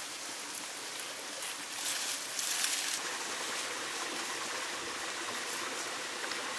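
Steady rushing of a flowing stream, with a louder hiss for about a second partway through.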